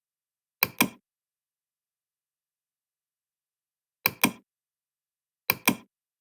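Three pairs of sharp knocks, each pair two quick strikes about a fifth of a second apart, with dead silence between the pairs.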